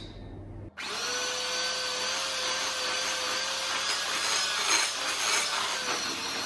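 Electric hand mixer running steadily at one speed, a constant motor whine over the churning of its beaters through thick cookie dough as the first third of the flour is beaten in. The sound cuts in sharply about a second in, with a few light knocks of the beaters against the glass bowl past the middle.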